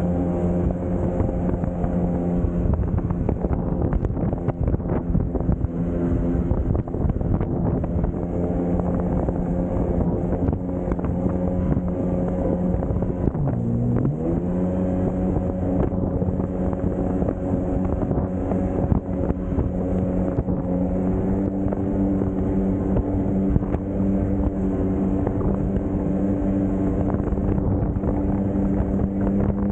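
Jet ski engine running steadily at speed, with wind buffeting the microphone. About halfway through, the engine pitch dips briefly and then climbs back.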